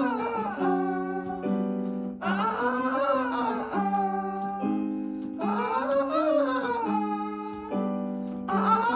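A singer holds a vowel in a warm-up exercise, sliding up and back down in pitch. Each sung phrase alternates with a short run of steady instrument notes, roughly every three seconds.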